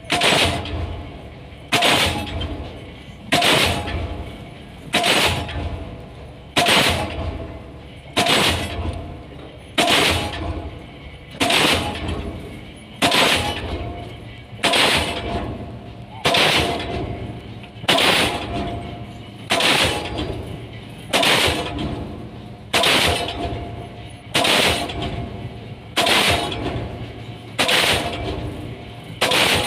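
Diesel pile-driving hammer driving a pile, one sharp blow about every 1.6 seconds in a steady rhythm, each blow followed by a ringing, fading rumble.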